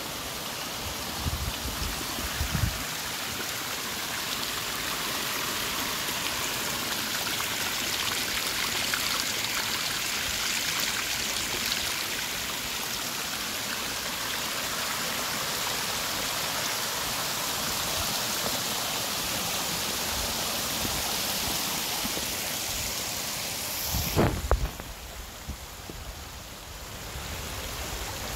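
Water spilling in a thin sheet over the top of a long concrete weir wall and splashing down its face onto the rocks below: a steady rushing splash. A few low bumps come about a second in and again near the end, after which the rush is quieter.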